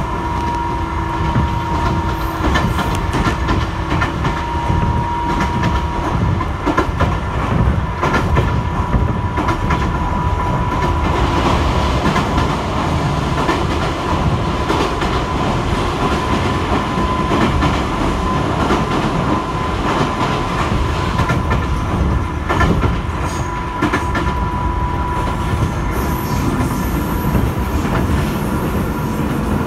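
JR 205 series electric commuter train running, heard from inside the car: a steady low rumble of wheels on rail with a steady high whine and occasional clicks over the rail joints.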